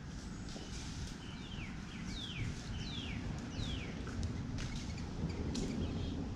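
A bird calling a quick series of about five clear whistled notes, each sliding downward in pitch, starting about a second in, over a steady low rumble.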